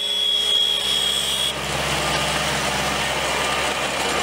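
Renault Ares tractor's diesel engine running close by, a steady hum. A high steady whine sits over it for about the first second and a half, then stops.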